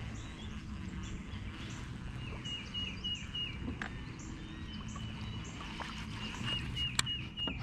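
A songbird singing two runs of short whistled notes, each note dropping at its end, over a steady low rumble; a sharp click near the end.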